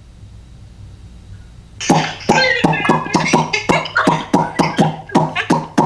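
A man beatboxing: quick, evenly spaced mouth-percussion beats, several a second, starting about two seconds in after a moment of quiet room tone.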